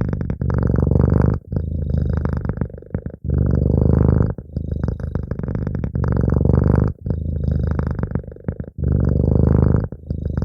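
Domestic cat purring close up, a continuous low rumble that swells and dips in phases about one to two seconds long, in time with its breathing in and out.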